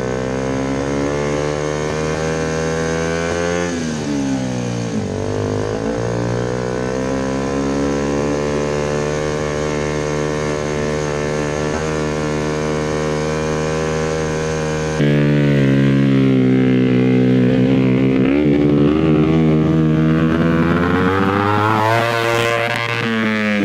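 Two-cylinder engine of an offroad shifter kart buggy running under load, heard from on board. Revs climb and drop sharply a few seconds in, hold steady for a long stretch, then rise and fall again near the end.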